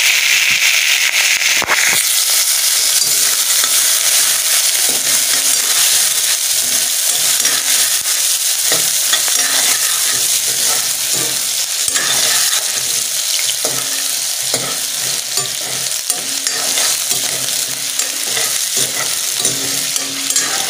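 Diced potatoes and onion sizzling in hot oil in a metal pot, with a steel ladle stirring and scraping the pan now and then. The sizzle is sharper for the first two seconds, just after the potatoes go in.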